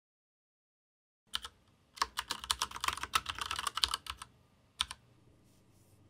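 Keyboard typing: a single keystroke about a second in, a quick run of keystrokes for about two seconds, then two more single keys, the last near the end.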